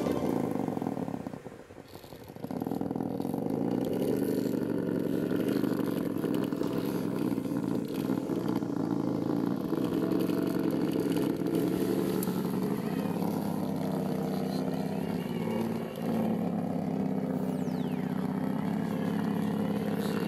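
Electric motor and gear drivetrain of a Traxxas TRX-4 RC crawler whining as it crawls, the pitch rising and falling with the throttle. It cuts out for about a second near the start.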